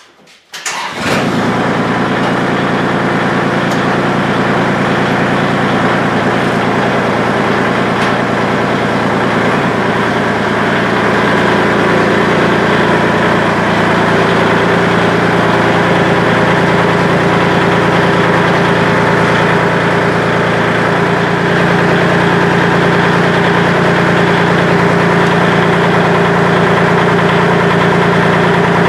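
Kubota L2501 compact tractor's three-cylinder diesel engine starting about a second in, then running steadily at low speed as the tractor reverses.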